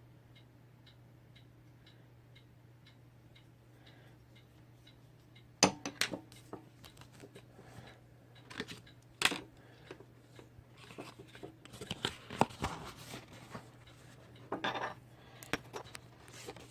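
Faint steady ticking, about two and a half ticks a second, over a low hum. From about five and a half seconds in come irregular sharp clicks and clatter of small hard objects being handled, the loudest at the start and again around twelve seconds.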